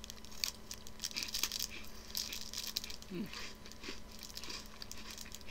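Faint crunching of dry, crisp cookies being chewed, with scattered light crinkles and crackles.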